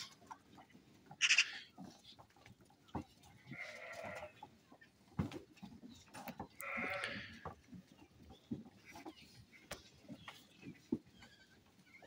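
Mor-breed lambs bleating, with two longer bleats about four and seven seconds in, among scattered short knocks and rustles.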